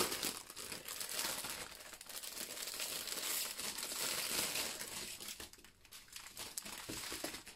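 Thin clear plastic packaging crinkling and rustling as hands pull it open and off a bundle of small bead bags, with a short lull near the end.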